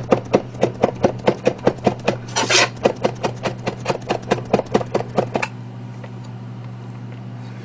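Chef's knife rapidly chopping steamed garlic on a plastic cutting board, a quick, even run of knocks that stops about five and a half seconds in.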